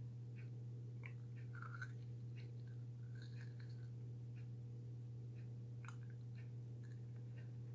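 A person chewing dry cookie cereal, with faint, scattered crunches and one sharper click about six seconds in, over a steady low hum.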